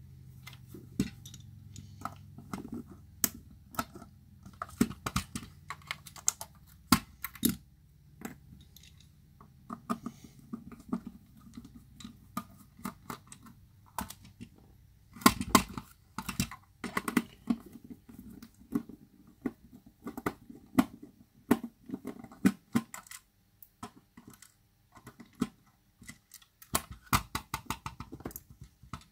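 Irregular plastic clicks, taps and knocks as the white plastic housing of a Sonoff S20 smart plug is handled, opened up and its parts set down on a hard work surface, with a denser flurry of louder knocks about fifteen seconds in.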